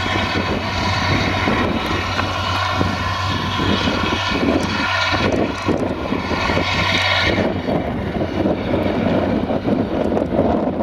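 Tractor engine running steadily under load while mowing grass: a low drone with a whine above it. About seven seconds in the whine drops away as the tractor pulls off, leaving a fainter, rougher rumble under wind on the microphone.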